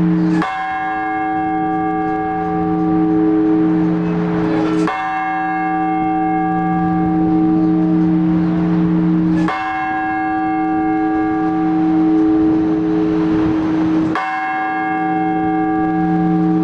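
A large Orthodox church bell struck singly at an even, slow pace, four strokes about four and a half seconds apart, each one ringing on until the next. This is blagovest, the measured single strokes on one big bell, here the weekday bell.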